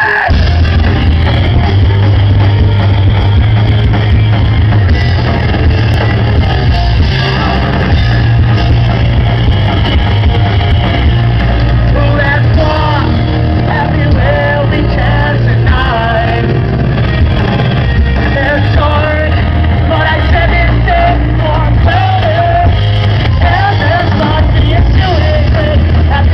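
Rock band playing live with a singer: loud, bass-heavy full-band music with sung vocals. It is recorded close and dull-toned, with the top end cut off.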